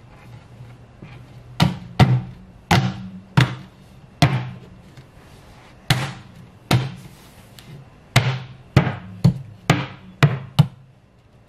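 Fist pounding on the top of a black particleboard IKEA Alex drawer cabinet: about a dozen hard thuds in uneven runs, each with a short low ring from the hollow box, knocking the top panel down onto its fittings.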